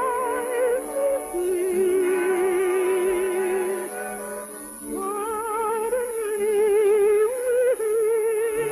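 Orchestral music with a slow melody of long, held notes with a wide vibrato. It thins out briefly around the middle and swells again about five seconds in.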